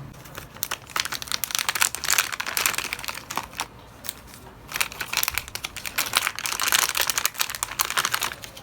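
Paper or plastic packaging being crinkled and handled, in two stretches with a short lull around the middle.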